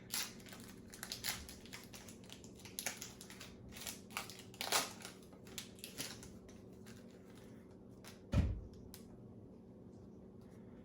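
Foil Pokémon booster pack wrapper crinkling as it is handled and opened, in a run of short sharp crackles over the first seven seconds, then a single low thump.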